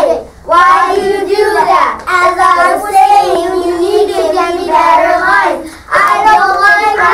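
A small group of young children singing together in phrases with held notes, with short breaks between phrases.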